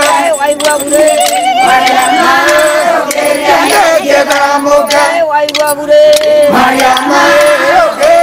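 A group of women singing a chant-like song together, holding long wavering notes, with short sharp clicks among the voices.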